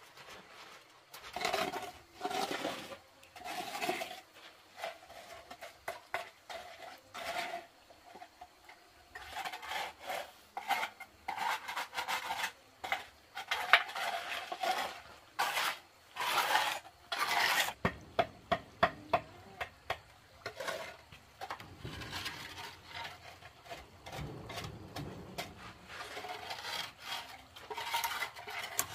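Wooden hand float rubbing and scraping over wet, freshly poured concrete in repeated strokes as the floor is smoothed, with a run of quicker, sharper strokes partway through.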